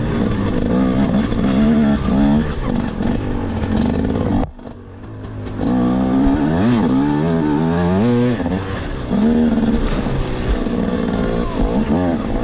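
Dirt bike engine heard from on board, revving up and down over and over as the bike is ridden hard. About four and a half seconds in, the sound drops off sharply for about a second, then the engine picks up again.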